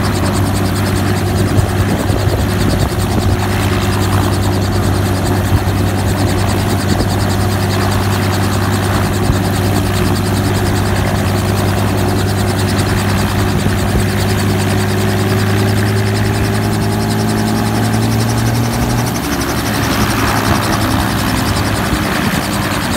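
Light two-bladed helicopter running on the ground with its rotor turning, a steady loud engine-and-rotor drone. Near the end its note rises slightly and shifts as it begins to lift off.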